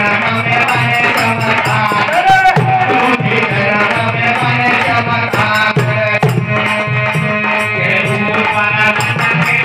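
Live Indian devotional folk music: held melody notes over a low drum pattern, with a rattle shaken in a quick, even beat.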